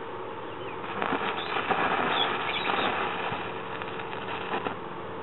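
Stick-welding arc crackling as a steel flat bar is tack-welded to an iron base. The arc strikes about a second in and crackles for a couple of seconds, then weakens towards the end, over a steady hum.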